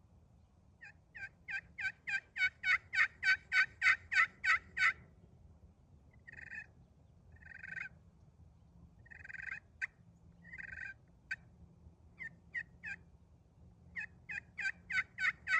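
Green slate over aluminum turkey pot call in a Bocote wood pot, played with a canary wood striker: a run of evenly spaced yelps, then softer drawn-out notes and a few sharp clucks, then another run of yelps near the end.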